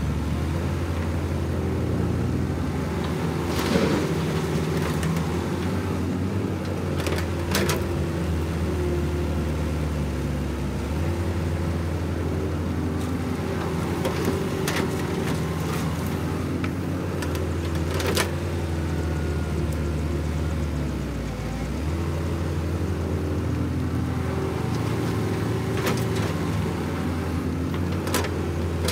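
Caterpillar 312 hydraulic excavator's diesel engine running under digging load, its note shifting a few times as the hydraulics work. Several sharp clanks and knocks of the steel bucket against dirt and stones.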